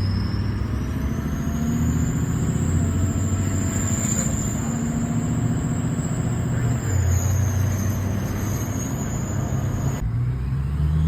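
Ford 6.0 Power Stroke V8 turbo-diesel running through a 4-inch straight-pipe exhaust: a deep exhaust rumble under a loud, high turbo whistle. The whistle rises in pitch over the first couple of seconds, holds, then dips about seven seconds in.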